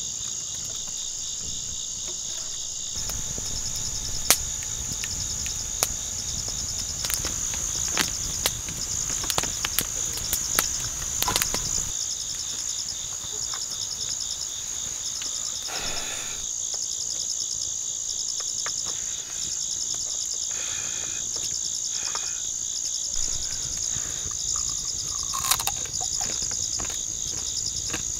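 Steady, finely pulsing chorus of night insects such as crickets. Scattered sharp clicks and knocks come through it, mostly in the first half.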